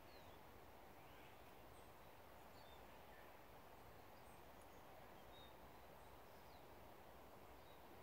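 Faint forest ambience: a steady low hiss with scattered faint, high, short bird chirps.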